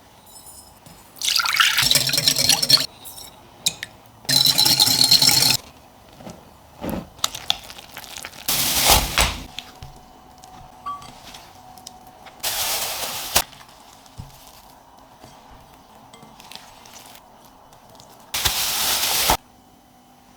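Liquid poured into a mixing bowl in two pours of about a second and a half each, likely the water and oil for focaccia dough. Three shorter, noisier bursts follow later.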